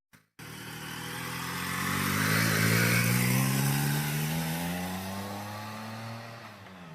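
Motorcycle engine accelerating: its pitch climbs steadily for several seconds, is loudest about two to three seconds in, then fades, and drops briefly near the end.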